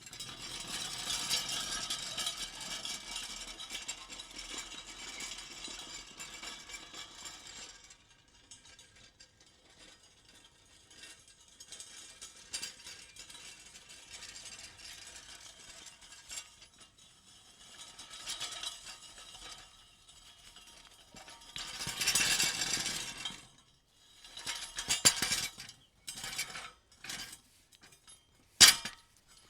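Metal pieces shuffling and rattling against each other, with clinks and jangles. The rattling is dense for the first several seconds, then thins to quieter shuffling, swells again briefly about three quarters of the way in, and ends in a few separate sharp clinks.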